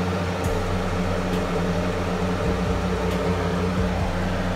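Steady mechanical hum with a low drone, plus a few faint ticks.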